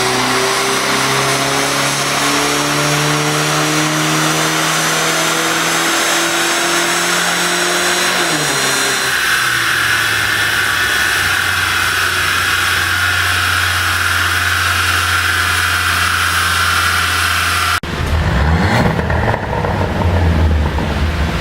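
Mercedes-Benz C200's turbocharged four-cylinder engine pulling under full load on a dyno, its revs climbing steadily for about eight seconds. The engine note then drops off suddenly into a steady hum with a whine above it. Near the end the sound changes abruptly to irregular sharp pops and crackles, the overrun pops of a pop-and-crackle tune.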